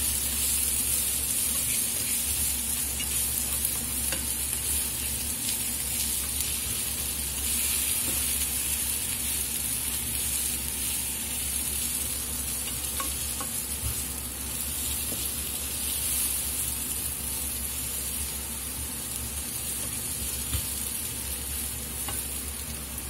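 Sliced courgette and onion sizzling steadily as they fry in a pan, starting to brown, with a spatula stirring through them and ticking against the pan now and then.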